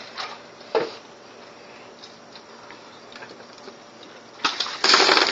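A bucket of ice water tipped over a person's head near the end: a sudden loud rush of pouring, splashing water. Before it, a single sharp knock about a second in and faint small ticks.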